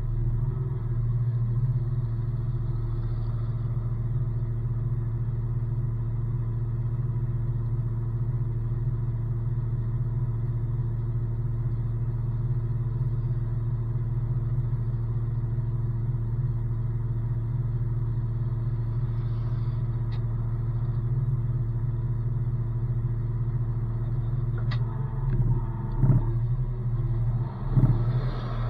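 Heavy tow truck's engine idling steadily with a low, even hum. Near the end come a few brief louder knocks.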